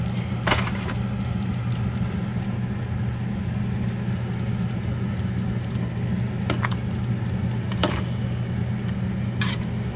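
Steady low mechanical hum, like a motor or fan running, with a few short sharp clicks or knocks scattered through it.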